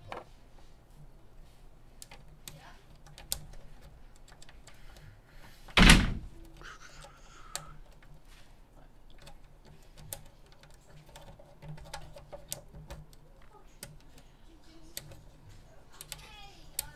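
Scattered small clicks and taps of hands fitting an expansion card and its cable back into an Apple IIGS case, with one loud thump about six seconds in.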